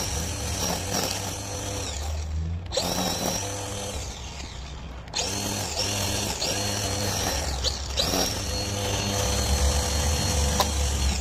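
Electric string trimmer running as its line cuts grass, a steady motor whine. It eases off twice and spins back up.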